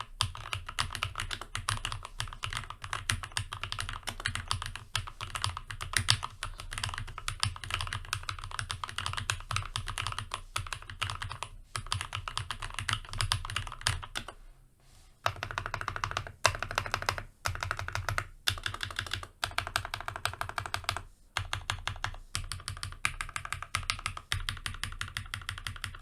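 Keychron K6 mechanical keyboard with spray-lubed red linear switches being typed on fast: a dense, continuous run of keystrokes, with a short pause a little past the middle and a few brief breaks near the end.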